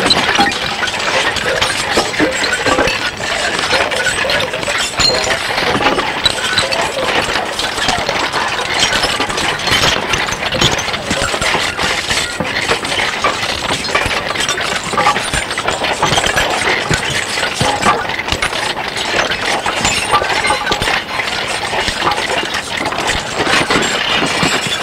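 Experimental noise / musique concrète track: a dense, continuous clatter of many small clicks, rattles and scrapes, staying at a steady loud level.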